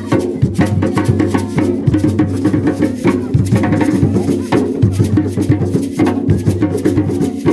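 Gwo ka drumming: several hand-played ka drums, with boula drums keeping the rhythm and a makè lead drum playing over them, in quick, dense strikes.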